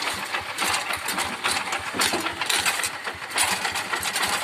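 Rice-field tractor's diesel engine running steadily, a continuous chugging made of evenly repeating low pulses.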